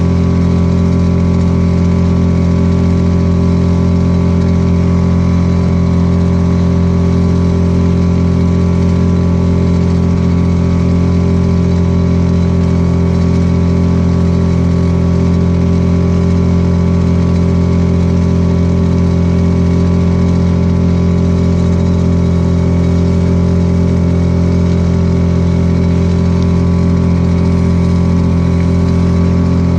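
Small outboard motor pushing a canoe, running at a steady, unchanging speed.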